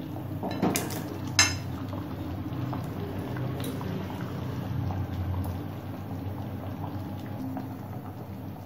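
Fruit chutney in thin melted-sugar syrup simmering and bubbling in a kadai on a gas flame. Two sharp clinks against the pan in the first second and a half as pieces of mango leather are tipped in.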